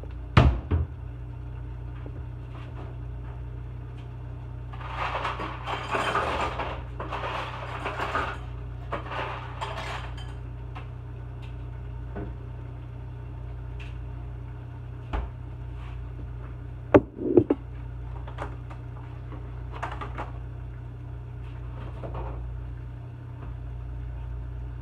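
Kitchen handling noises: a couple of sharp knocks at the start, a few seconds of clattering and rustling about five to ten seconds in, and two louder knocks a little past the middle, over a steady low hum.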